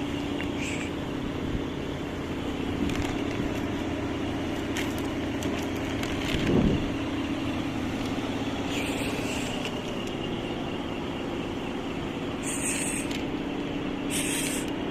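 Outdoor ambience with a steady low mechanical hum, much like a motor vehicle running nearby, with scattered faint clicks, a brief louder knock about halfway, and two short hisses near the end.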